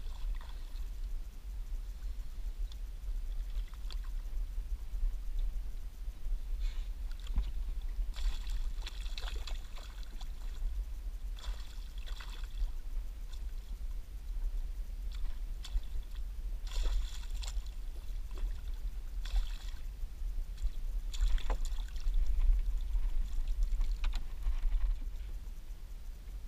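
A hooked pickerel fighting beside the boat: several short bursts of water splashing and thrashing at the surface, over a low steady rumble of wind on the microphone.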